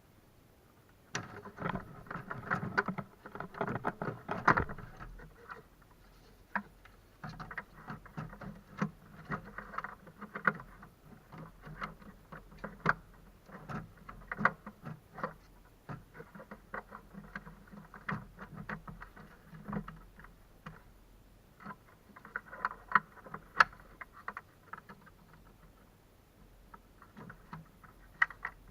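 Irregular clicks, taps and scraping of hand work with tools on a car's plastic fuse-and-relay box, busiest about a second in and again near the end.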